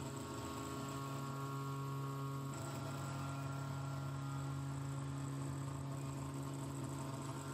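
Foxalien WM3020 desktop CNC milling pockets in an aluminium bar with a small single-flute end mill, its spindle running at 10000 rpm. It gives a steady pitched hum with many overtones, with a slight change about two and a half seconds in as a new test pass begins.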